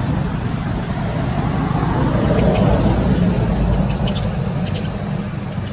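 Steady low rumble of a motor vehicle engine running, with a few faint high ticks about four to five seconds in.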